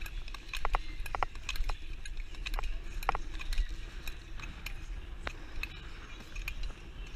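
Long-track speed skates on ice: sharp clicks at irregular spacing, a few with a short metallic ring, as the clap skate blades snap back against their heels with each stride. Underneath is a low rumble of wind on the microphone.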